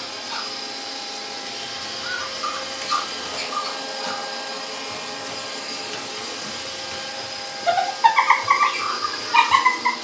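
Roomba robot vacuum running with a steady whirring hum. About three-quarters of the way in comes a run of short, high electronic toy squeaks, the first sliding upward.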